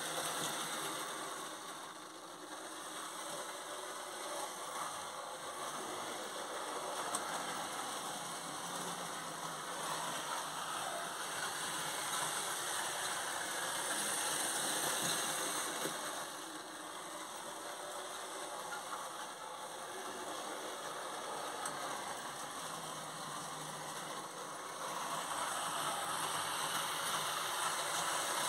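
H0-scale model trains running on the layout's track: a steady mechanical whirr and rattle that grows louder and softer as trains pass close by.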